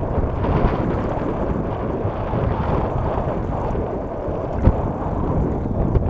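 Wind buffeting an action camera's microphone: a steady, uneven low rushing noise, with one short knock about four and a half seconds in.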